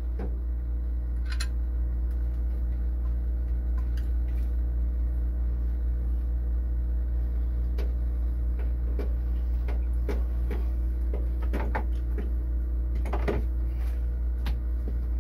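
A steady low hum throughout, with scattered light metallic clicks and taps from a wrench, nuts and washers being fitted to a boat alternator's mounting bolts, a little more frequent in the second half.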